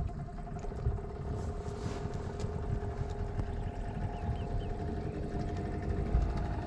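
Boat engine running steadily, an even hum that holds its pitch over a low rumble.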